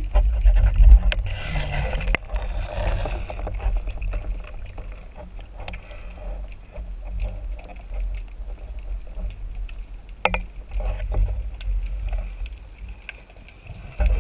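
Underwater sound heard through an action camera's waterproof housing: a steady low water rumble with a hissing rush between about one and three and a half seconds in, and scattered clicks and knocks from the speargun, shaft and line being handled as the diver swims up.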